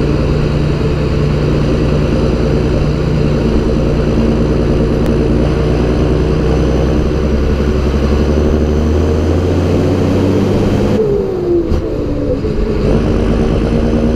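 John Deere 6930 tractor's six-cylinder diesel engine running steadily. About eleven seconds in, the note dips and falls in pitch for a second or so, then picks back up.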